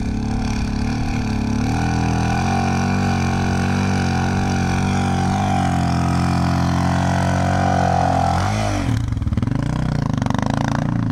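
Single-cylinder dual-sport motorcycle engine held at high revs under load as it powers up a sand dune. The revs fall away sharply about eight and a half seconds in, and the engine drops to a lower, pulsing run near the end.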